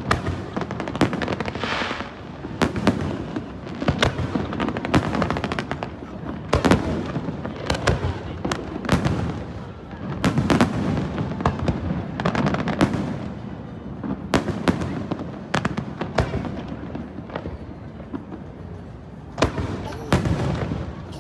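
Aerial fireworks display: a continuous barrage of sharp bangs and crackling over deep rumbling booms, easing briefly before a new cluster of bangs near the end.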